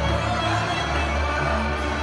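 Live Hungarian folk string band playing Transylvanian dance music: fiddles over a steady double bass.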